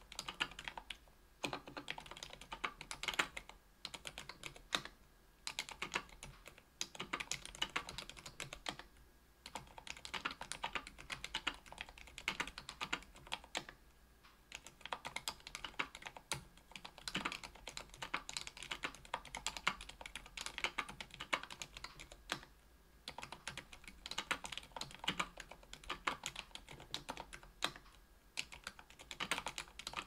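Typing on a KBDfans Tofu 65% aluminium keyboard with lubed Aliaz 60g silent tactile switches, an aluminium plate and Cherry-profile PBT keycaps. Fast runs of muted keystrokes, broken by short pauses every few seconds.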